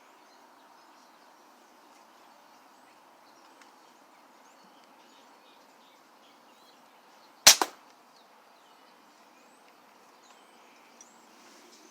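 A single shot from an old spring-piston air pistol: one sharp crack about halfway through, with a quick second crack a split second after it.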